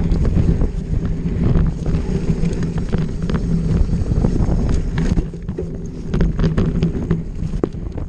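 Wind buffeting a bike-mounted camera's microphone during a fast descent, with a steady stream of clattering knocks and clicks from the bike rattling over rough trail. The noise dips briefly about five seconds in.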